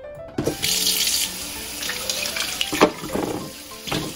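Kitchen faucet running into a plastic bowl in the sink, starting about half a second in, with splashing as bitter gourds are rubbed clean under the stream.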